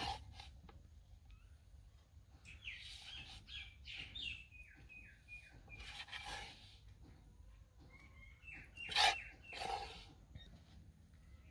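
A spoon scraping cooked besan bhindi out of a pan onto a plate in a few quiet strokes, the loudest about nine seconds in, along with runs of short high chirps.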